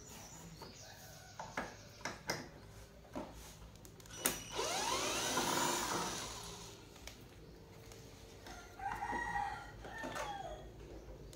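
A rooster crows once about four seconds in, its pitch rising and then falling, and a chicken clucks briefly near the end. Scattered light clicks sound in between.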